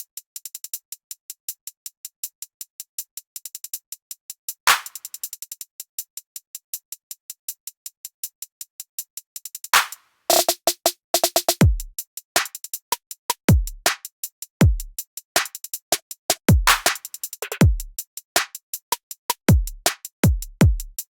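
Electronic music with a drum machine beat: fast hi-hat ticks alone at first, then about ten seconds in deep booming kicks that slide down in pitch join in, with a short synth figure.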